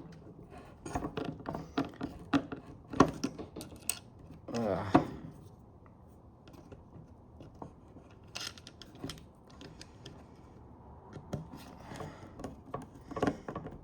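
Scattered clicks and knocks of trunk latch actuator parts being handled and fiddled with by hand, with a brief murmur of a voice about five seconds in.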